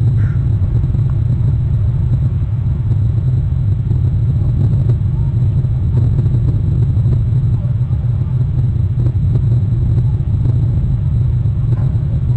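A steady low rumble of outdoor background noise on the nest camera's microphone, with no clear bird calls.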